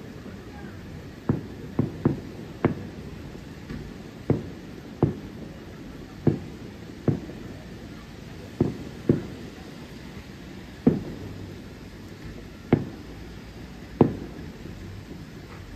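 Distant fireworks shells bursting: a string of about a dozen sharp booms at uneven gaps, roughly one a second, each trailing off in a short echo.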